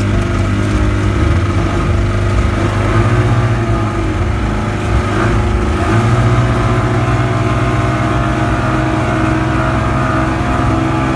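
Two outboard motors driving a small speedboat at speed: a loud, steady engine drone whose pitch steps up about a second in and again around the middle as the throttle is opened further.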